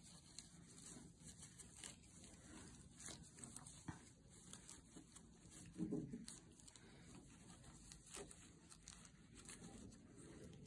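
Near silence with faint rustling, crinkling and small clicks of paper towel being handled, and a brief, somewhat louder low sound about six seconds in.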